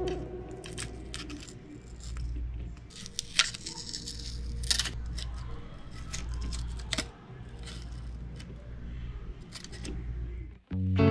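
Scattered small clicks, taps and snips from handling small tools and model parts, over a low steady hum.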